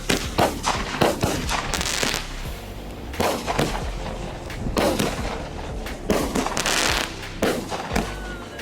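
Consumer mini firework cake ('Executioner', a 9-shot cake) firing its shots: a run of sharp bangs at uneven intervals, with crackling bursts after some of them.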